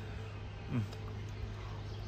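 Quiet background with a steady low hum, and one short low tone that falls in pitch a little under a second in.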